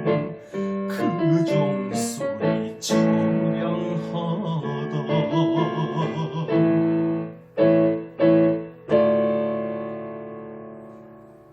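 Keyboard-piano instrumental ending of a song's accompaniment: a run of chords, three short stabbed chords, then a final chord held and fading away.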